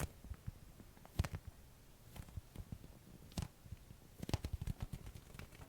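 Fingers pressing on and pulling off the tacky vinyl of an inflatable duck ring, giving irregular sticky snaps and small squeaks, with a quick cluster of them about four seconds in.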